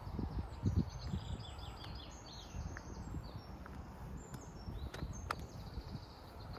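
Footsteps on gravel, irregular low crunches, with birds singing quick phrases of short high chirps throughout.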